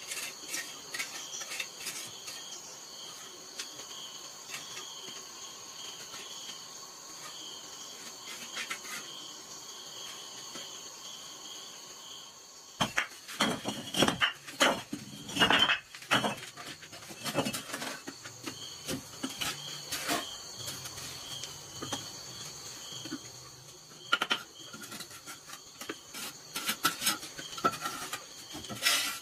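Clay bricks clinking and knocking against one another as they are set down and laid in place, a busy run of sharp knocks from about halfway, then scattered clicks. Crickets chirp steadily through the first half.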